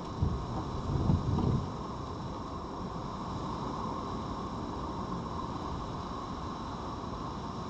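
Low bumps and rubbing in the first second and a half as a red fox's body brushes against the camera's microphone, over a steady hiss.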